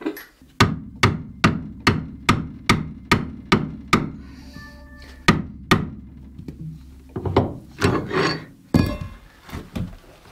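Hammer blows on a Jeep Cherokee XJ's Dana 30 front axle: a run of about nine even strikes, a little over two a second, then two more. After that come several softer, irregular knocks.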